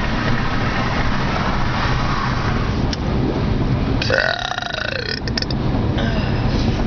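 A person's burp about four seconds in, lasting just over a second, its pitch rising and then falling, over steady road rumble inside a moving car's cabin.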